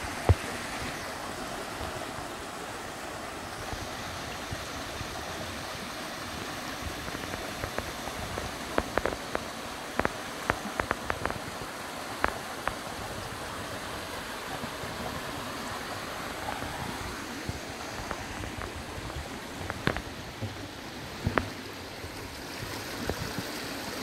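Mountain stream spilling over a small stone weir and running over a shallow rocky bed, full after recent heavy rain: a steady rush of water. Scattered light clicks sound over it, in clusters.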